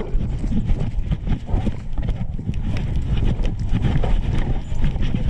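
Uneven, rhythmic thumping and jostling of a big dog on the move, picked up by a GoPro strapped to its harness, with heavy low rumble from the camera bouncing against the dog's body.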